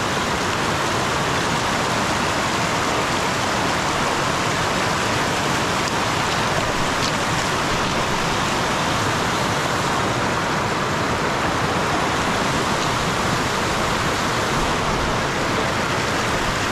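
Shallow mountain stream rushing and splashing over rocks: a steady, even rush of water.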